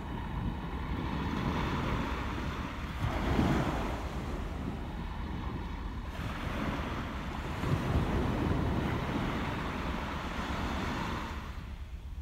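Sea waves washing and surging, swelling louder about three and a half seconds in and again near eight seconds, with wind rumbling on the microphone.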